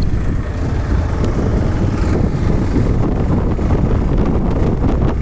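Steady, loud wind buffeting on the microphone of a moving Hero XPulse 200 motorcycle, a continuous low rush with the bike's running noise mixed in.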